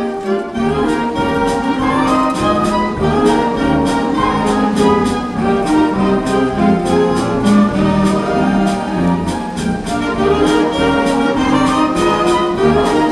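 High school band playing a piece live, with flute, clarinet and violin among the instruments: sustained chords and a moving melody over a steady percussion beat.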